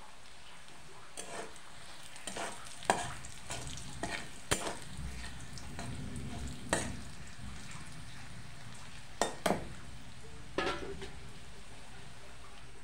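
Sliced onions sizzling in oil in a steel kadhai, with a steel spatula scraping and knocking against the pan in scattered strokes as they are stirred.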